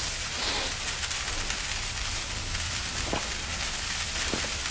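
A firework burning with a steady hiss and scattered crackles, like a fountain spraying sparks.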